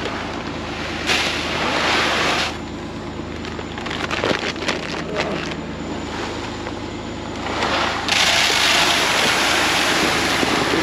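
A tractor engine running steadily under bursts of rushing noise, with a patch of light clicking and clatter in the middle.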